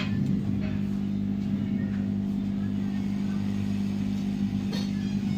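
Steady hum of a hot-air rework station blower while MOSFETs are being desoldered from a laptop motherboard, with a faint click near the end.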